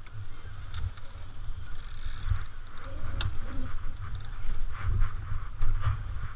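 Wind buffeting the microphone in uneven gusts, with water rushing along the hull of a small sailboat under way. A few sharp clicks sound over it, the clearest about three seconds in.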